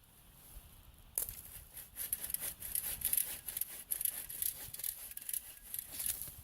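Footsteps crunching and crackling through snow, starting abruptly about a second in and going on as a dense, irregular crackle.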